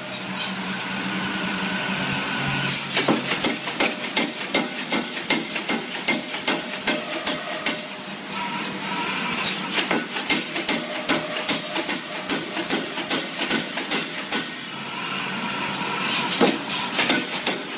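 Open-die power hammer pounding a glowing steel billet in rapid, evenly spaced blows. The runs of blows break off briefly at the start, about halfway through and near the end, leaving the machine's steady hum.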